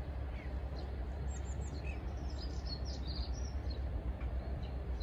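Small birds chirping in short high notes, busiest through the middle, over a steady low rumble of outdoor background noise.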